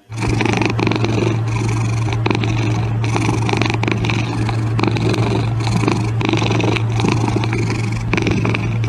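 Domestic cat purring loudly and steadily close to the microphone while it licks and chews food from fingers, with many small wet clicks throughout.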